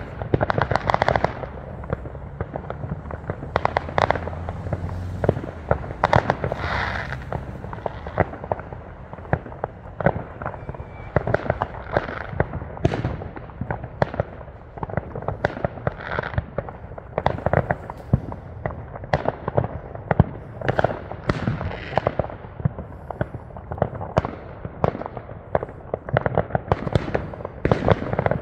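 Fireworks going off without pause: a dense run of sharp bangs and pops, several a second, some followed by a brief crackle.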